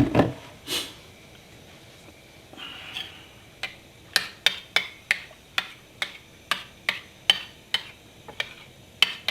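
Gas stove burner being lit: a knock near the start, then the igniter clicking evenly, about two to three clicks a second, through the second half.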